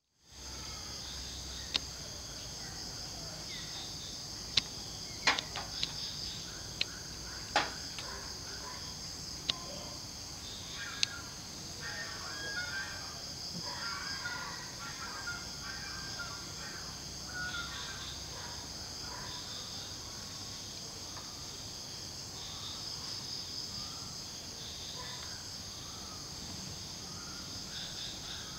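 Outdoor ambience of a steady, high-pitched insect chorus, with scattered bird chirps through the middle and a few sharp clicks in the first ten seconds.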